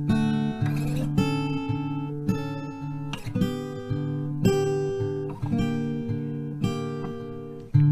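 Background music: acoustic guitar plucked and strummed, a note or chord struck about every half second to second.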